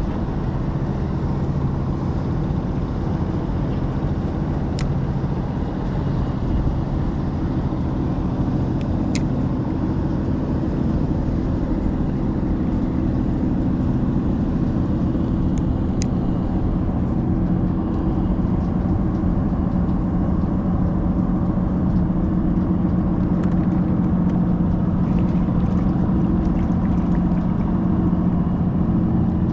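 Small boat's outboard motor running steadily, its engine hum growing stronger in the second half, with a few faint ticks.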